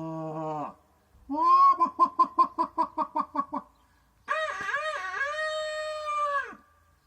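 A voice making animal-like calls: a held call, then a quick stuttering run of about a dozen short pulsed calls, then one long wavering wail.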